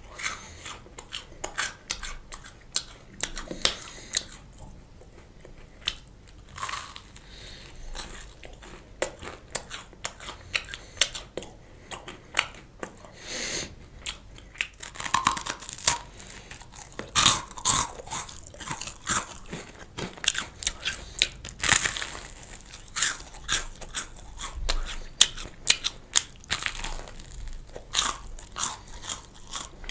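Crunchy bites and chewing of a crisp toasted bread slice: irregular sharp crunches with quieter chewing between them, busiest in the middle of the stretch.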